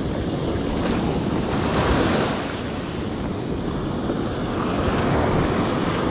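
Ocean surf breaking and washing up the sand, with wind buffeting the microphone. It swells about two seconds in and again near the end.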